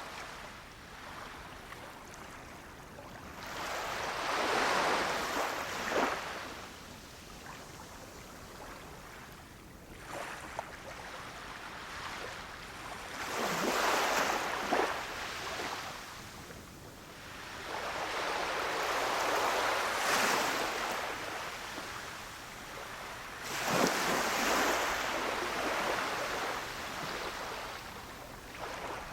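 Gentle sea waves breaking on a beach: four waves, each swelling over a few seconds and ending in a short splash as it breaks, with a soft wash of surf in between.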